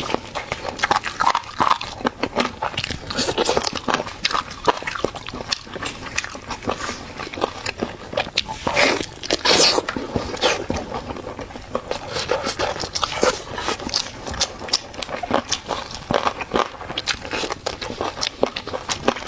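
Close-miked eating: biting and chewing with wet, crunchy clicks and smacks, irregular and continuous.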